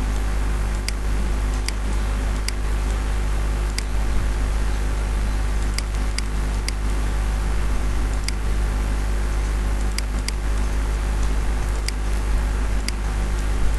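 Steady low electrical hum and hiss, with about a dozen sharp computer-mouse clicks at irregular spacing.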